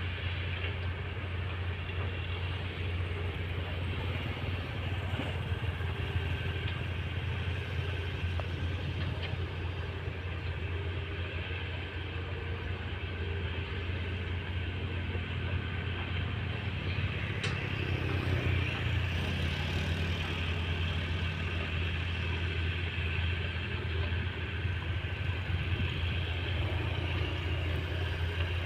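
Diesel engines of heavy earthmoving machines, an excavator and a bulldozer, running with a steady low drone; the engine note shifts for a few seconds past the middle, as under changing load.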